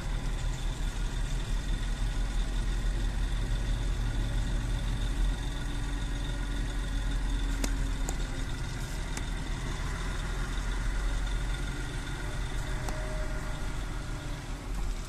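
A motor vehicle engine running steadily at idle: a constant low rumble with a faint steady whine above it.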